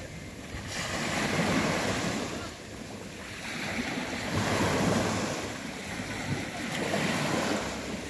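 Small waves breaking and washing up the sand in slow surges every few seconds, with wind buffeting the microphone.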